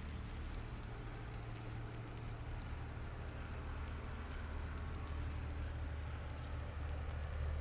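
Beaten egg omelette mixture sizzling in ghee on a hot iron tawa, a steady fine crackle over a steady low hum.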